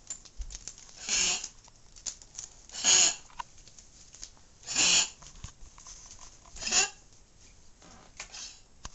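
Old dog with congestive heart failure coughing: four loud coughs about two seconds apart, then a few fainter ones near the end.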